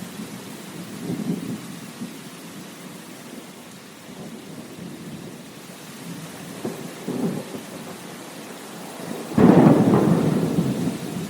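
Steady rain with rolling thunder: low rumbles about a second in and around seven seconds, then a sudden, loud thunderclap near the end.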